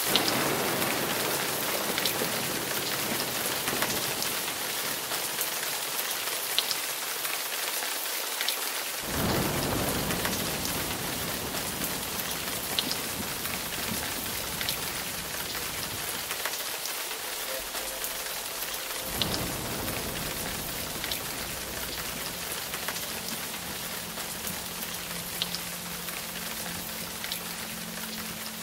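Steady rain falling on a hard surface, with scattered drop splashes. Low thunder rumbles twice, about a third and two-thirds of the way through. A low steady tone comes in near the end.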